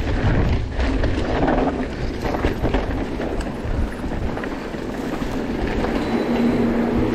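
Mountain bike riding over rough trail: a heavy rumble of wind on the microphone and tyres on rough ground, with the bike rattling. The rumble eases in the second half, and a steady low hum comes in near the end.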